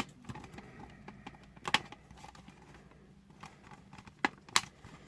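Small plastic toy parts of a Playmobil DeLorean being handled and fitted, with scattered light clicks and taps and four sharper clicks.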